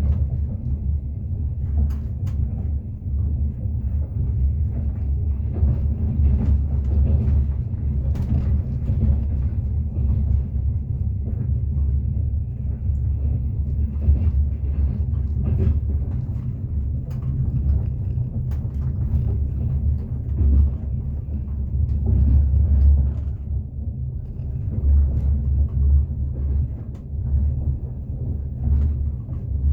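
A passenger train running along the track, heard from inside the carriage: a steady low rumble of wheels on rails with scattered sharp clicks and knocks.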